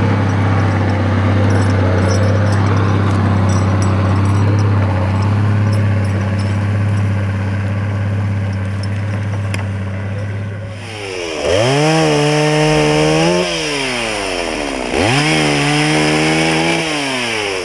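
A steady low engine hum, then a two-stroke chainsaw revved up twice to full throttle while cutting branches of a fallen dead tree. Each rev rises sharply, holds high for about two seconds and drops back.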